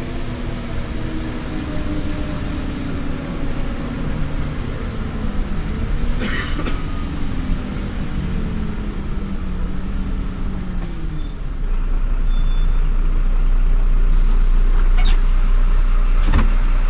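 Jelcz M121M city bus heard from inside the passenger cabin while driving. The engine and drivetrain hum rises and falls in pitch with speed, there is a short knock about six seconds in, and from about two-thirds through a deeper, louder rumble takes over.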